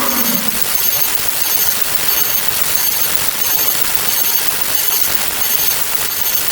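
A loud, steady, dense rattling noise with no clear pitch. In the first moment a pitched, engine-like sound slides down and cuts out into it.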